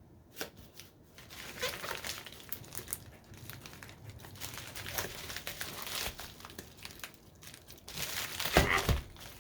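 Packaging being handled while a box is unpacked: irregular crinkling and rustling with small clicks, and a louder burst of rustling near the end.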